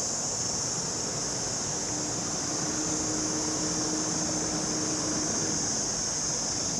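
A steady, high-pitched insect drone runs throughout. From about two seconds in until shortly after five seconds a faint motor hum joins it.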